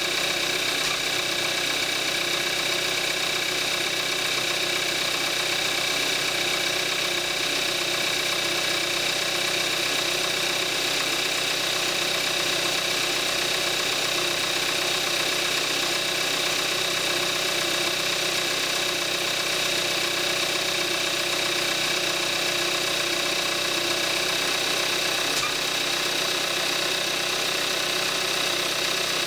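2014 Kia Forte5's 2.0-litre gasoline direct-injection four-cylinder engine idling steadily with the hood open, a few minutes after a cold start. This is its normal running sound at 41,000 miles on 5W-30 synthetic oil.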